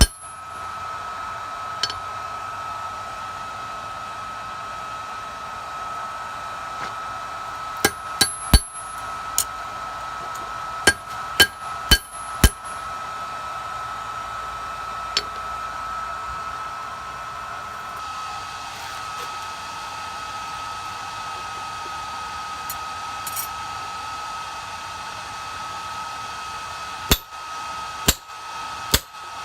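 Forge blower running with a steady whine, while a hammer strikes steel on the anvil in short groups: a few ringing blows about eight seconds in, more around eleven to twelve seconds, and a quicker run of blows near the end.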